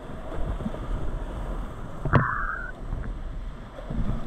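Rushing whitewater of a flooded river heard from a kayak running the rapids, with low thuds of water and paddle strokes against the boat. About two seconds in, a single sharp knock with a brief splash is the loudest sound.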